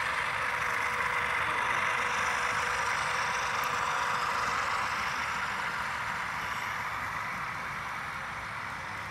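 Steady diesel engine sound from a sound-equipped HO scale GE ES44AC model locomotive, played through its onboard speaker. The sound grows gradually fainter over the second half.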